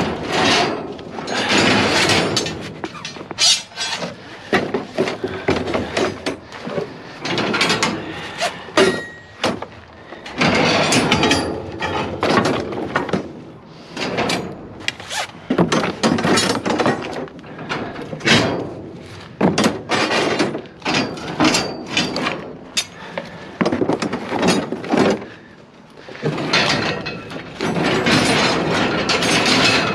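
Scrap metal pieces clanking, scraping and knocking against one another as they are handled, in irregular bursts.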